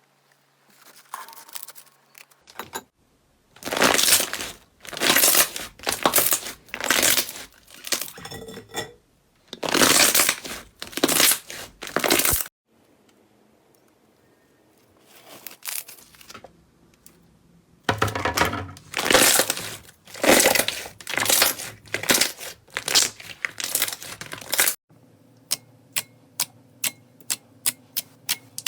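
Slime being squeezed and pressed by hand, making runs of loud crinkling, crackling squelches with short pauses between them. Near the end it changes to a regular run of sharp clicks, about three a second.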